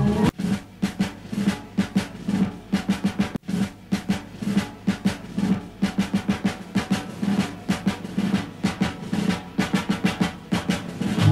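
Instrumental drum break in a recording of a rugby league team song: snare and bass drum playing a fast, even pattern while the rest of the band drops out.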